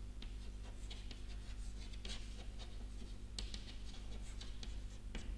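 Chalk writing on a blackboard: faint, irregular scratches and taps of the chalk as words are written, over a steady low hum.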